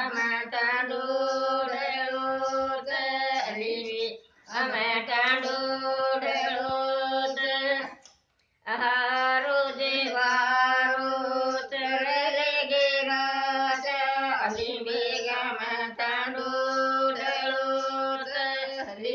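A woman singing a Banjara folk song with no words spoken, breaking off briefly about four seconds in and again about eight seconds in.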